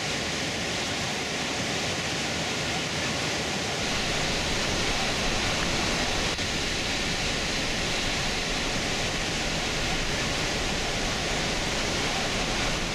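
Steady roar of Iguazu Falls' cascading water, a dense even rushing noise; it grows a little louder and deeper about four seconds in.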